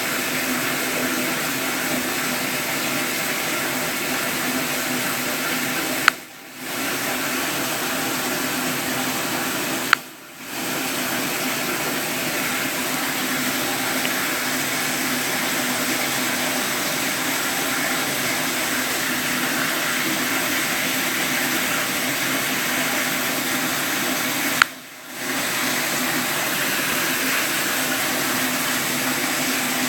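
Steady rushing water, broken three times by a sharp click after which the water sound drops away for about half a second before returning.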